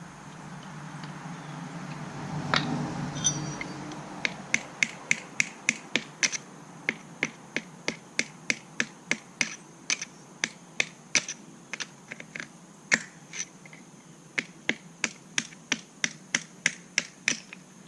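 Echo Speed Feed 400 trimmer head being turned by hand: a long run of sharp plastic clicks, two to three a second, with a few brief pauses, after a little handling rustle.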